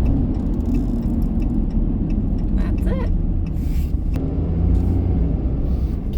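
Steady low rumble of engine and road noise inside a pickup truck's cab while driving.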